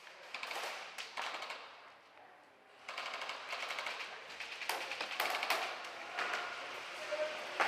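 Airsoft guns firing rapid full-auto bursts, a fast rattling stream of shots. A burst comes in the first second and a half, then a short lull, then steadier fire from about three seconds in.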